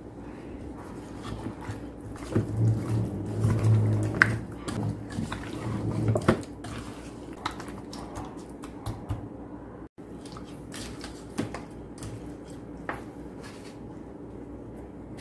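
Hand mixing marinated chicken wings with egg and starch in a stainless steel bowl: wet squishing with irregular clicks against the metal, loudest for a few seconds near the start. Later, quieter handling as wings are pressed into a bowl of dry flour.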